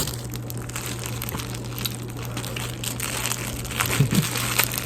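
Packaging crinkling and rustling as it is handled and opened during a knife unboxing, with small clicks and crackles throughout.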